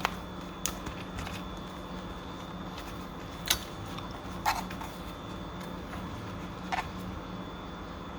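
About five sharp clicks and taps of small plastic headphone parts being handled, over a steady faint hum.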